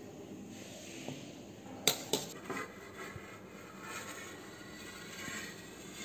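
Quiet room tone broken by a sharp metallic clink about two seconds in, with a second lighter one just after and a few faint clicks: a steel plate lid being set down on a steel vessel.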